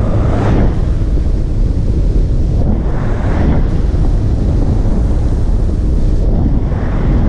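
Wind buffeting a moving rider's camera microphone: a steady loud low rumble that swells into a louder rush three times, about three seconds apart.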